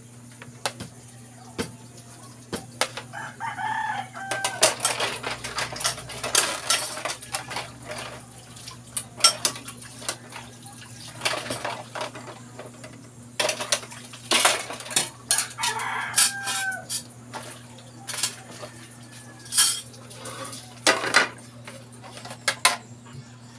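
Plates and cutlery clinking and knocking against each other as dishes are washed by hand at a sink. A rooster crows twice, about four seconds in and again about fifteen seconds in.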